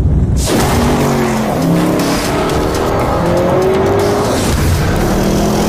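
Lamborghini Urus twin-turbo V8 revving hard under acceleration, cutting in abruptly about half a second in; its pitch climbs, drops back at each gear change and climbs again.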